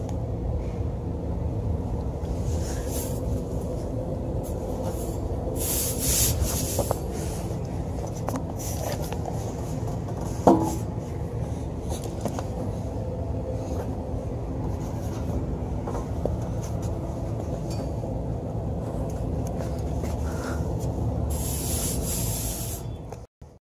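Steady machinery hum with several held tones, scattered light clicks and knocks, and a brief higher blip about ten seconds in.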